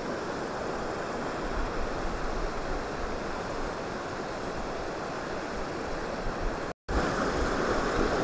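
Steady rush of a shallow stream running over stones in rapids. The sound drops out for a split second about seven seconds in and returns louder.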